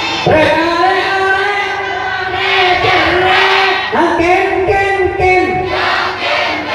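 A man singing a sholawat devotional song into a microphone in a high voice, holding several long, drawn-out notes that bend and slide in pitch.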